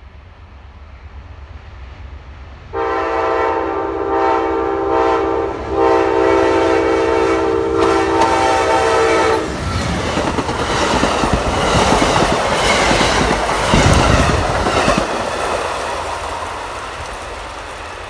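Amtrak GE P42DC locomotive's multi-chime air horn sounding two long blasts, cut off as the locomotive passes. Then the rumble and wheel clatter of the passenger cars rushing by at speed, fading as the train recedes.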